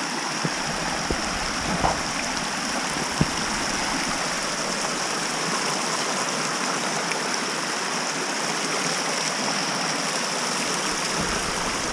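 Small woodland stream splashing steadily over rocks in little cascades and trickles.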